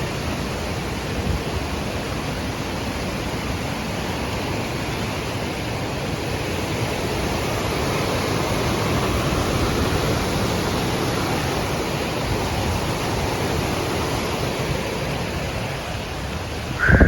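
Waterfall rushing: a steady, even roar of falling water that grows a little louder midway through.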